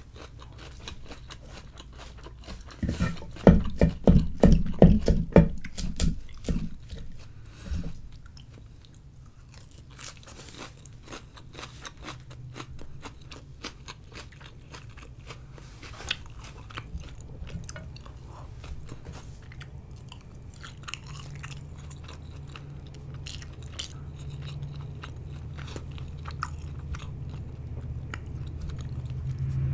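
Close-miked chewing of crisp lettuce salad: loud, rhythmic crunches starting about three seconds in and lasting a few seconds, then softer chewing and small mouth clicks.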